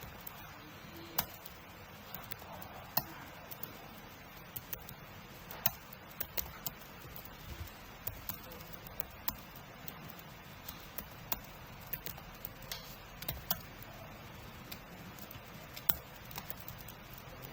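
Typing on a computer keyboard: irregular key clicks, a few a second, with some keystrokes louder than others, over a steady hiss.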